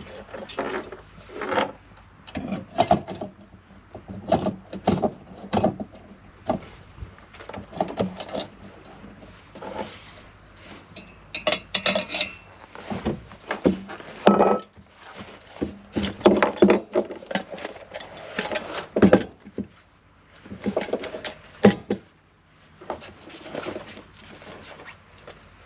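Irregular clinks, clicks and knocks of small metal camping gear being handled and set down on a wooden bench: a brass camp stove and its brass windscreen, then a small metal kettle.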